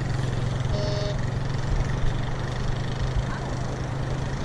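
Whites TreasurePro metal detector giving a short two-tone beep about a second in and another right at the end, over a steady low drone.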